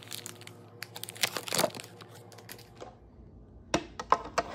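Paper butter wrapper crinkling and small knocks as butter is handled. Near the end come several sharp plastic clicks as the clear lid is fitted onto the food processor bowl.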